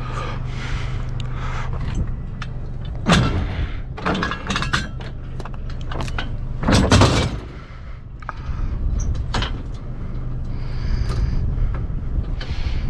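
A heavy broken metal jack being lifted and handled, with knocks and scrapes and two louder clunks about 3 and 7 seconds in, over a steady low hum.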